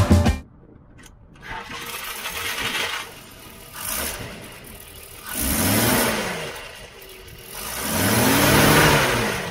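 A 1941 Chevrolet's original straight-six engine running, revved up and let back down twice in the second half, the pitch rising and falling each time.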